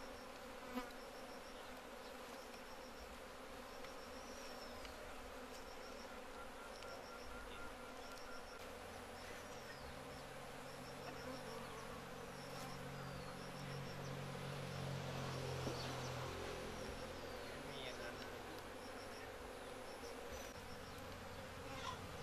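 Honeybees buzzing steadily as a colony is disturbed and handled during transfer from a log hive to a box hive. The buzz grows louder about halfway through, then eases again.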